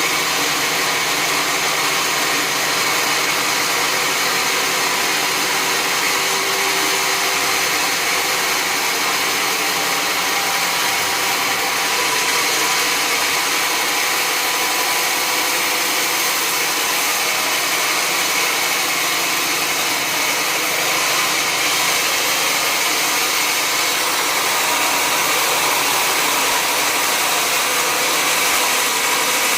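Sawmill machinery running steadily: a dense, even mechanical noise with a few constant tones in it, unbroken throughout.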